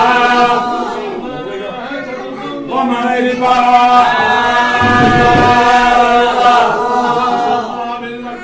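Men's voices chanting together in unison, drawing out long held notes; the chant drops back for a second or two and swells again about three seconds in.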